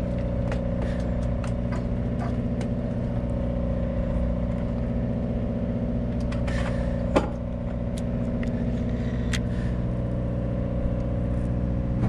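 A boat's engine running steadily at low speed, a constant low hum, with scattered light clicks and one sharp knock about seven seconds in.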